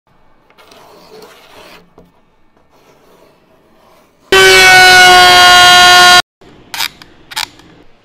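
A loud, steady, horn-like tone held for about two seconds, starting and stopping abruptly, preceded by faint rubbing and followed by two short whooshes near the end.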